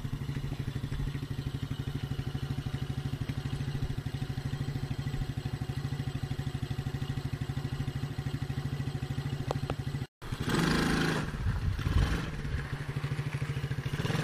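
Small SunL kids' ATV engine idling with a fast, even putter. After a brief dropout about ten seconds in, it runs louder and rougher, revving as the ATV is ridden.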